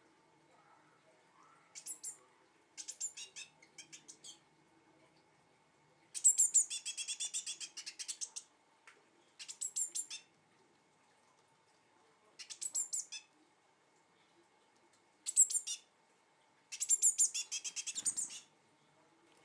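Fledgling blue tit calling in about seven bouts of rapid, high-pitched notes, the longest lasting around two seconds.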